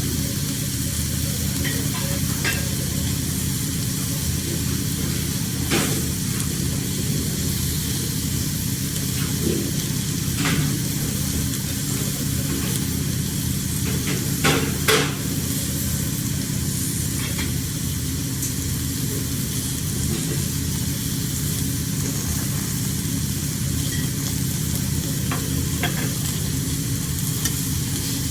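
Seafood sizzling on a hot grill, steady throughout, with a few short sharp clicks or taps now and then, two of them close together about halfway through.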